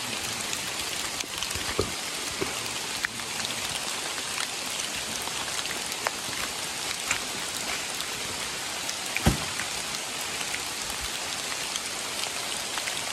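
Steady rain falling, an even hiss with scattered sharp ticks of single drops landing close by.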